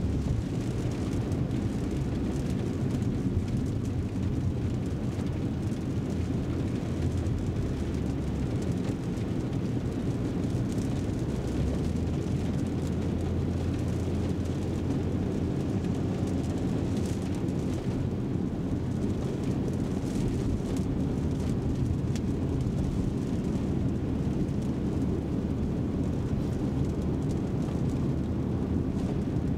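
Cabin sound of a BMW M340i Touring's 3.0-litre inline-six driving at moderate city speed on a wet road: a steady low engine drone under a hiss of tyres on wet tarmac. The low note shifts a couple of times as the car gathers speed.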